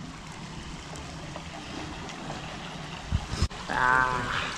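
A steady rushing noise, then a couple of low bumps about three seconds in, then a man in a hot pool laughing loudly in a wavering voice near the end.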